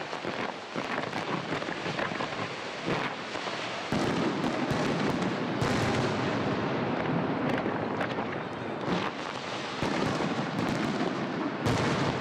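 Fireworks display: a dense, rapid crackle of many small pops and bangs, growing louder and fuller about four seconds in.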